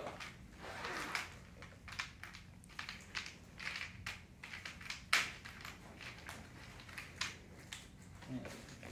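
Plastic and paper medical-supply packaging crinkling and rustling in gloved hands as a syringe kit is handled, in irregular bursts with the sharpest crackle about five seconds in.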